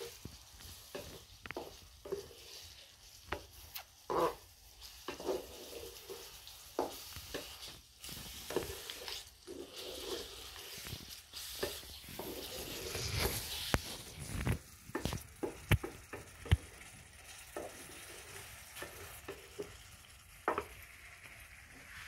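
Wooden spoon stirring pieces of liver in a spiced sauce in a metal saucepan, knocking and scraping irregularly against the pot while the sauce sizzles. The sizzle swells for a couple of seconds in the middle.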